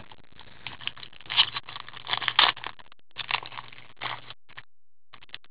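Card packaging being opened and handled with cotton-gloved hands: irregular scraping and crinkling in short bursts, ending a little over a second before the end.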